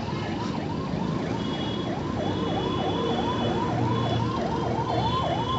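Ambulance siren sounding in a fast up-and-down sweep, about three rises and falls a second, over the noise of stalled traffic.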